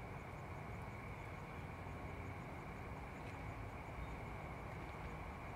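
Faint, steady outdoor background noise: a low, unsteady rumble with a steady high-pitched drone above it.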